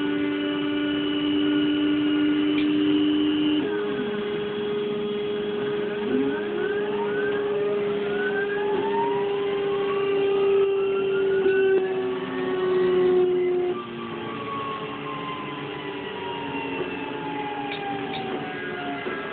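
Stepper motors of a homemade CNC router whining as it runs a cutting pattern. A steady tone steps up in pitch about four seconds in, then several tones glide up and down as the axes trace curves, and it gets quieter about fourteen seconds in.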